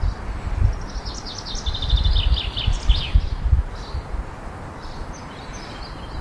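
A house finch's warbling song, a rapid jumble of high notes lasting about two seconds from about a second in, followed by a few faint chirps. Under it runs an intermittent low rumble.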